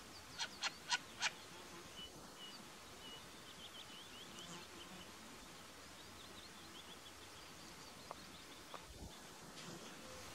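Short-eared owl giving four short calls in quick succession, in the first second and a half. Faint high chirping runs on through the rest.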